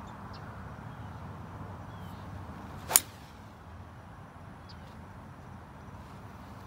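A 3-wood striking a golf ball off the fairway: a brief whoosh of the downswing, then one sharp crack of clubface on ball about three seconds in.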